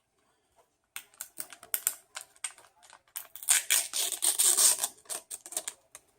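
Takeout food packaging being handled: a run of clicks and crinkles that grows denser and louder about halfway through, then thins out again.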